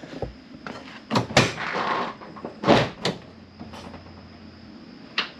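Hooke Road rear bumper being shifted into position on its loose mounting bolts: several metal knocks, with a scraping slide after the first one. The loudest knock comes a little under three seconds in.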